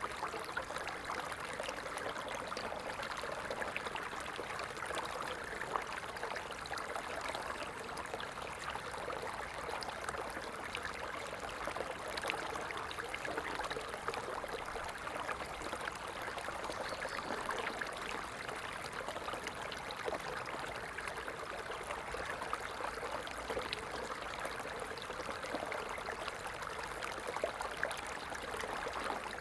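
Stream water flowing steadily: a continuous rush of water with many fine splashes and trickles.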